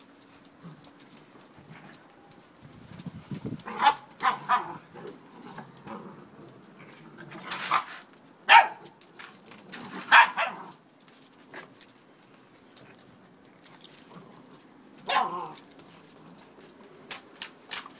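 Dogs play-barking and yapping while they tussle over a toy: a quick run of three short barks about four seconds in, then single sharp barks spread through the rest.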